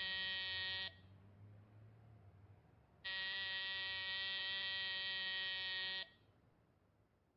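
An electric buzzer sounds twice: a buzz of about a second, then after a pause a steady buzz of about three seconds that cuts off suddenly.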